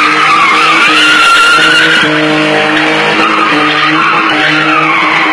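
BMW car drifting: its tyres squeal in a long, wavering screech over the steady note of the engine.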